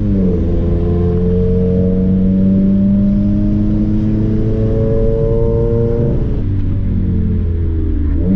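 Straight-piped Subaru WRX's turbocharged flat-four, heard from inside the cabin while driving. The note drops at an upshift right at the start, climbs slowly under acceleration for about six seconds, falls away as the throttle closes, then rises sharply near the end.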